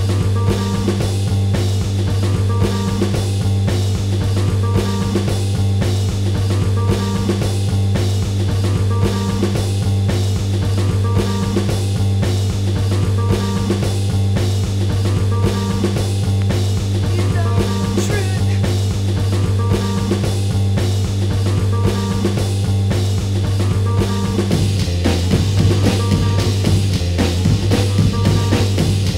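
Instrumental stretch of a noise-rock track remixed in illbient style: a heavy looping bass line and drum kit with guitar, repeating a short figure about once a second. About 25 seconds in, the bass pattern changes.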